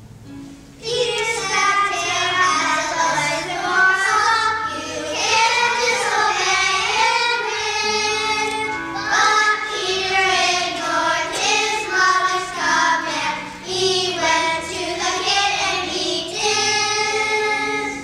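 A group of young children singing a song together, with instrumental accompaniment underneath; the voices come in about a second in.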